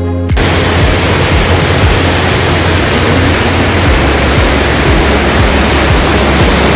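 White water gushing out through a stone dam outlet: a loud, steady rushing that cuts in about half a second in.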